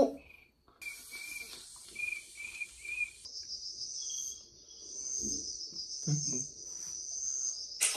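Cricket chirping like an autumn bell cricket: short high chirps about twice a second, then from about three seconds in a steady, high, fast-pulsing trill.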